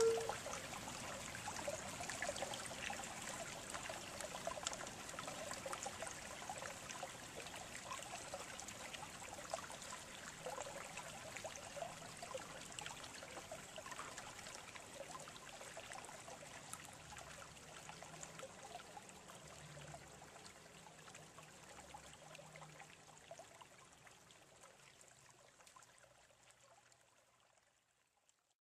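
The low D whistle's last note breaks off right at the start. After it, a faint hiss with a fine trickle, like a small stream, fades slowly away to silence over the next twenty-odd seconds.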